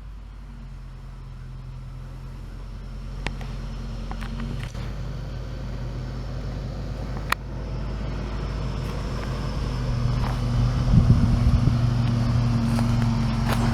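Off-road 4x4's engine running at a steady pitch, growing gradually louder, with a few sharp clicks and a rougher rumbling stretch after about ten seconds.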